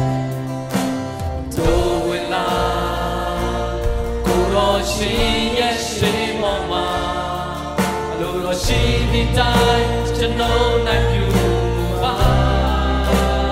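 Live Christian worship song sung in Burmese by several singers together, backed by a band with keyboard, guitars and drums. The drum hits are clear throughout.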